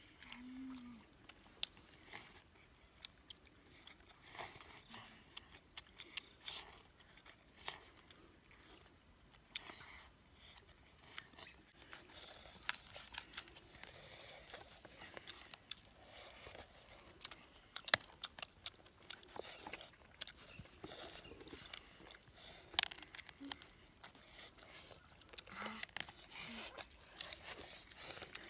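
Close-up eating sounds of grilled spiced duck: irregular crunching, chewing and tearing of the roasted meat and skin, with many small sharp clicks and crackles.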